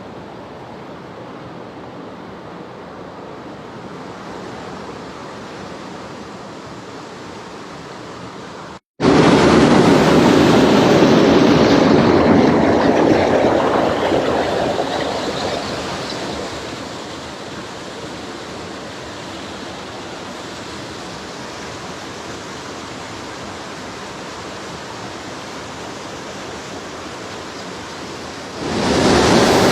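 Steady rushing noise of heavy rain and flowing stream water. It cuts out for an instant about nine seconds in, returns much louder and eases off over the next several seconds, then jumps louder again near the end.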